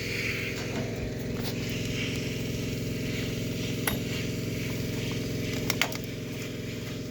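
A steady low hum with many even overtones, and a few light glassy clicks, one about four seconds in and a quick pair just before six seconds.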